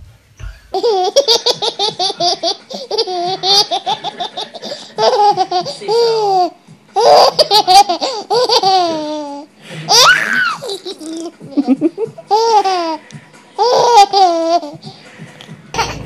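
A baby laughing hard in repeated bouts: quick strings of laughs broken by short pauses, with a high rising-and-falling squeal about ten seconds in.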